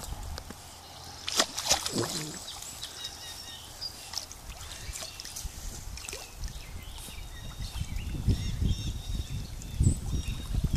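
Water sloshing and trickling around a swimming Jack Russell terrier as it paddles, with a few sharp clicks about a second and a half in and low rumbling in the last few seconds.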